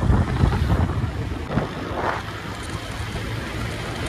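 Wind buffeting the microphone of a moving motorcycle, with the bike's engine running underneath, a little louder in the first second.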